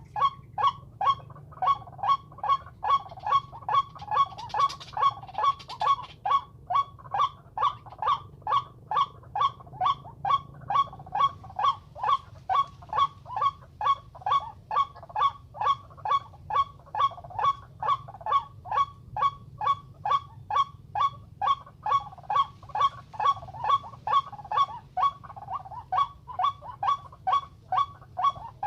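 White-breasted waterhen calling, one short nasal note repeated very evenly about twice a second without a break: the lure call used to draw waterhens into a trap.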